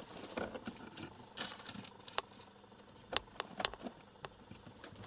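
A cat scrabbling and rustling about in a barred enclosure: faint scattered scratches and taps, busiest about three seconds in.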